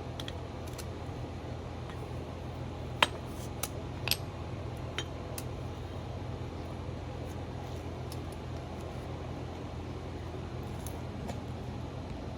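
A few sharp metallic clinks, the loudest about three seconds in and several more over the next two seconds, over a steady low hum.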